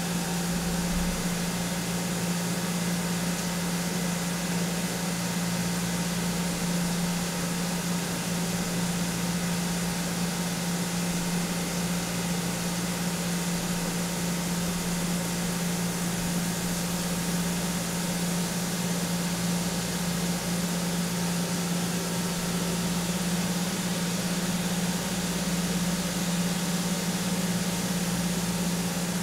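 CNC vertical machining center milling 6Al-4V titanium with a .393-inch Duo-Lock radius cutter at about 1910 rpm under flood coolant, on a roughing pass: a steady low hum with the hiss of coolant spray, unchanging throughout.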